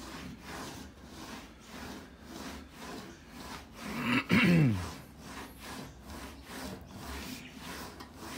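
English wheel rolling sheet aluminium back and forth to stretch and shape a curved engine cowling, a rhythmic rubbing at about two strokes a second. About four seconds in comes one louder groan that falls in pitch.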